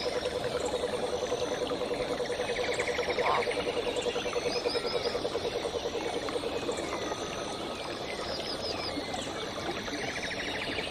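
Frogs calling in a chorus: one low, rapid trill runs until about two-thirds of the way through, while shorter, higher trills come and go over a steady background hiss.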